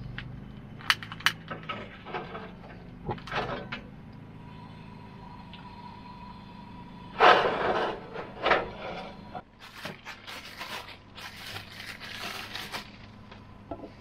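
Clicks and clatter from handling a two-burner propane camp stove: two sharp clicks about a second in, then louder scraping and rustling bursts from about seven seconds on.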